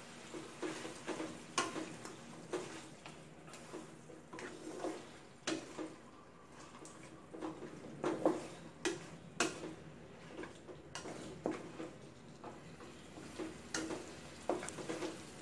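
A wooden spatula knocking and scraping against an aluminium pot in irregular strokes, stir-frying chicken pieces in green curry paste, with a low sizzle underneath.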